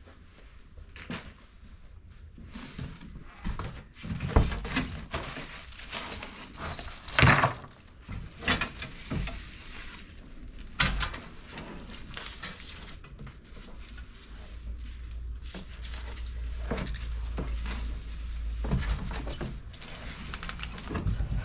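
Irregular knocks, clunks and scrapes of packaging and parts being handled while a new lawn scarifier is unpacked. The loudest knocks come about 4, 7 and 11 seconds in, and a low rumble joins in the second half.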